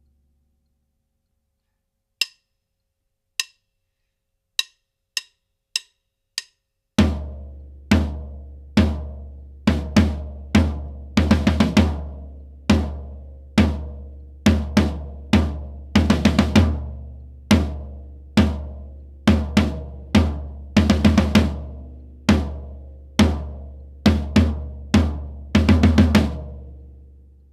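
Six sharp clicks, two slow then four quicker, count in a drum kit. About seven seconds in, the drums begin a repeating dotted-eighth groove played on the floor tom with bass drum, each bar closing in a quick cluster of strokes.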